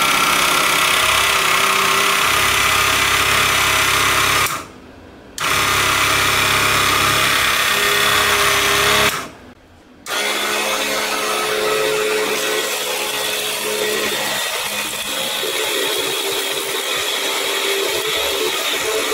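Small motor of a mini table jigsaw running with its blade going up and down, cutting out briefly twice, at about four and a half and nine seconds in. In the last few seconds the sound changes as a thin wooden craft stick is cut on the blade.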